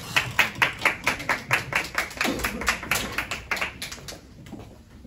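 A small group clapping hands in brisk, even claps, about six a second, as applause to welcome the next speakers. It dies away after about four seconds.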